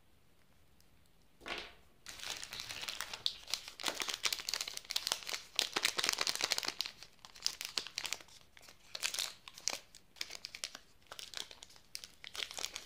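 Plastic wrapper of a Cadbury Fuse chocolate bar crinkling and tearing as it is handled and torn open by hand, in uneven bouts of crackling rustle that begin about a second and a half in.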